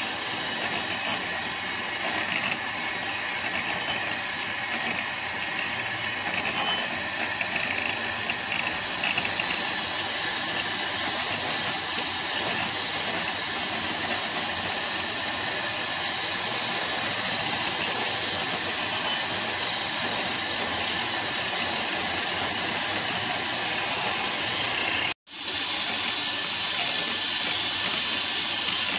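Electric hand mixer running steadily, its beaters whipping softened butter in a glass bowl. It breaks off for an instant near the end, then runs on.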